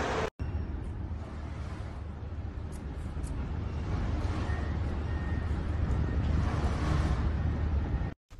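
Steady low rumble with a hiss over it: road and wind noise of a ride in a moving vehicle. It cuts off abruptly near the end.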